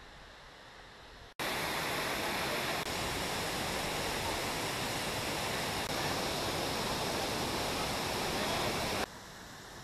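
Waterfall pouring over rocks into a rushing stream: a loud, steady rush of water that cuts in abruptly about a second in and drops away sharply near the end.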